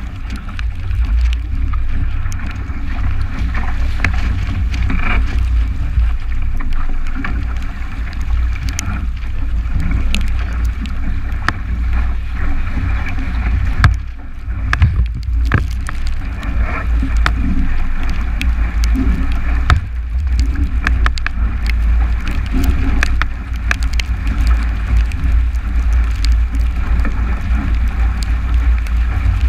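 Heavy wind buffeting the camera's microphone as a 29er skiff planes through chop, with water rushing past the hull and frequent sharp knocks and splashes from waves and spray hitting the boat.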